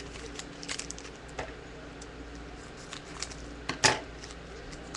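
Trading-card packs and cards being handled on a tabletop: scattered light clicks and rustles, with one sharper, louder click a little under four seconds in.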